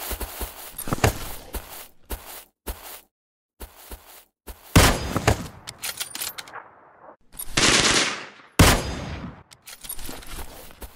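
Gunfire sound effects: quick rattling runs of automatic fire and single shots, broken by a short pause, with three louder, longer blasts of noise in the middle.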